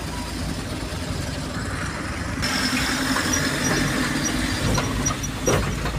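Truck being driven, heard from inside the cab: steady engine and road rumble. In the second half a faint high-pitched squeak repeats a few times a second, and there is one sharp knock near the end.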